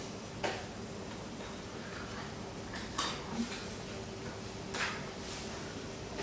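A handful of light, separate clicks and taps from broad beans being peeled with a paring knife and dropped onto a metal tray, over a steady hum.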